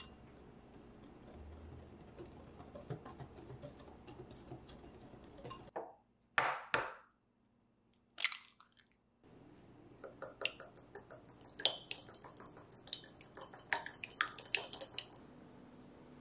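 A wire whisk stirring flour in a glass bowl with soft scraping. About six seconds in, an egg is tapped sharply against a ceramic ramekin and cracked open. From about ten seconds in, a run of quick light clinks lasts some five seconds.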